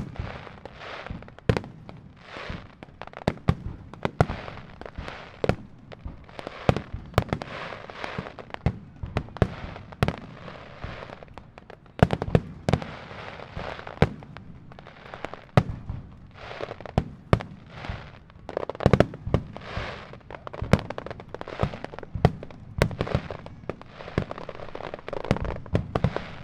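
Starmine fireworks barrage: a rapid, unbroken run of sharp bangs from shells launching and bursting, several a second, with crackling in between.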